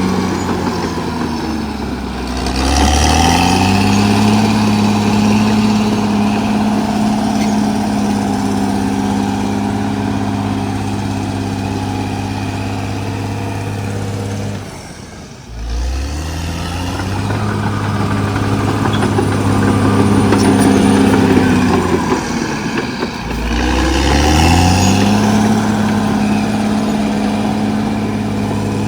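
Caterpillar D6R XL bulldozer's diesel engine running hard. Its pitch sags and climbs back a couple of times, and the sound drops away briefly about halfway through before rising again.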